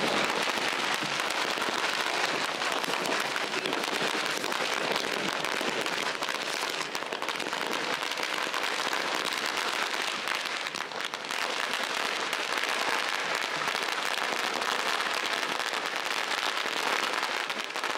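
A long string of firecrackers going off: a dense, unbroken crackle of many small bangs in rapid succession.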